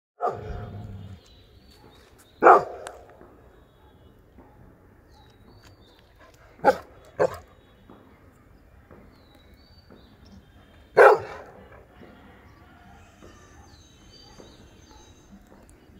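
Adult yellow Labrador retriever barking: loud single barks spaced several seconds apart, about five in all, with a quick pair of barks near the middle.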